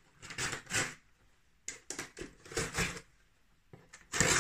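Cardboard shipping box being handled and opened: a few short scrapes and rustles of cardboard, then a louder, longer rasp of cardboard near the end.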